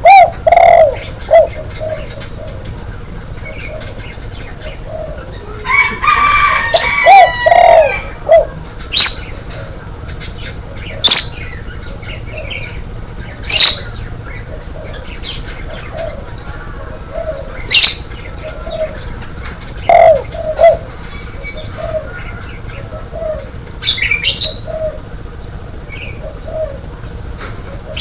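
Spotted dove (tekukur) cooing: short, low coos repeated many times. Other birds add brief sharp high chirps several times, and a longer call with several pitches together comes about six to eight seconds in.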